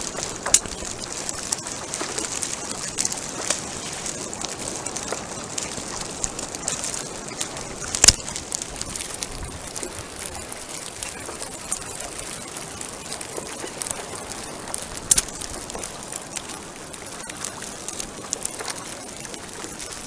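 Water splashing and lapping around a paddleboard on choppy sea: a steady hiss full of small crackles, with sharp knocks about half a second, eight seconds and fifteen seconds in, the one at eight seconds the loudest.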